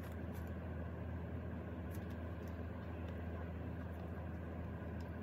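Steady low hum of background room noise, with a couple of faint ticks and no handling sounds.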